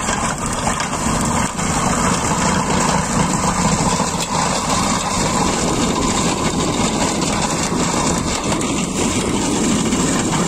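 Farm tractor engine running under load, driving an Elibol PTO-powered stone crusher whose rotor breaks field stones in a steady rattling din, with a few sharp knocks as stones are struck.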